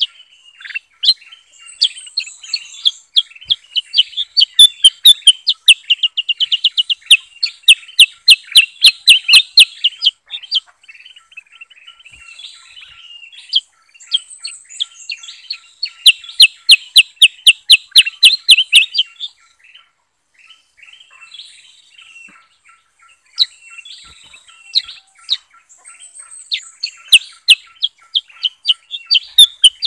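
Caged bulbuls, kutilang emas (ruby-throated bulbul) and kutilang sutra, singing. Loud runs of rapid, sharp repeated chirps come three times: from a few seconds in to about ten seconds, again around sixteen to nineteen seconds, and again near the end. Softer warbled phrases fill the gaps.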